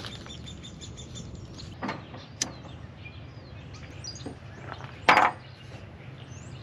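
Knocks and a short, loud clatter as cooking gear is handled on a truck tailgate, the loudest clatter about five seconds in, with birds chirping.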